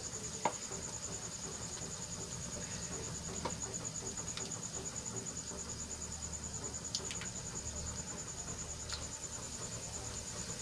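Besan-coated potato tikkis deep-frying in hot oil in a kadai: a steady fine sizzle, with a few short pops of the oil.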